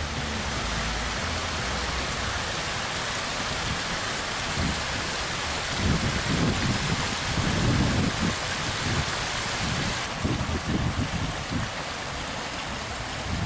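Storm wind gusting and buffeting the microphone in irregular low rumbles from about four seconds in, over a steady hiss of wind-driven weather.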